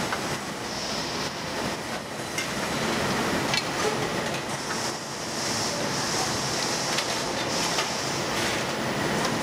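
Fish-cake forming line running: a steady mechanical whir with a few light clicks, and a high hiss that swells several times.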